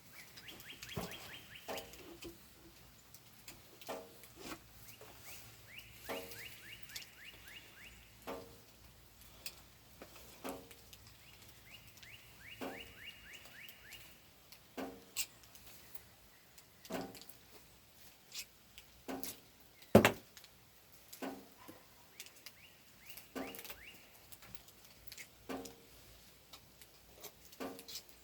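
A songbird's fast trill of short high notes, repeated four times, over scattered knocks and taps, with one much louder knock about twenty seconds in.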